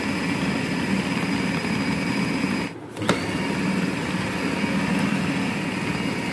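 Electric food chopper's motor running steadily as it grinds a minced mutton mixture to a paste. About three seconds in it cuts out for a moment and starts again with a click.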